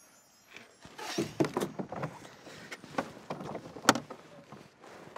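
Hard-shell suitcase being lifted and loaded into a car boot: a run of knocks, scrapes and clatter, the sharpest knock a little under four seconds in.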